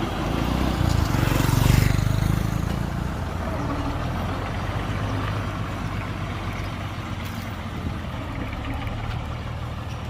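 Heavy diesel engine of earthmoving machinery running steadily. It swells louder with a rush of noise about one to two seconds in, then settles back.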